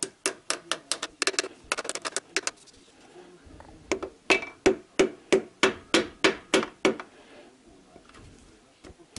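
The handle end of a hammer tapping a piston down into a cylinder bore of a VAZ 2111 engine block. About fifteen quick taps come in the first two and a half seconds; after a short pause come about ten evenly spaced taps, roughly three a second, stopping about seven seconds in.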